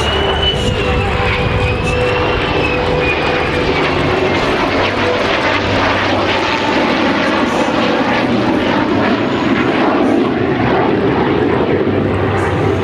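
A formation of an F-35A jet and two propeller fighters, an A-1 Skyraider and a P-51D Mustang, flying past: the F-35A's turbofan and the piston engines blend into one rough, continuous engine noise. It grows thicker about two thirds of the way through.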